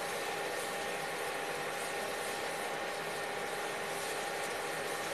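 Steady hiss of a spice-and-water masala simmering in a non-stick pan, over the constant hum of an induction cooktop made of a few steady tones.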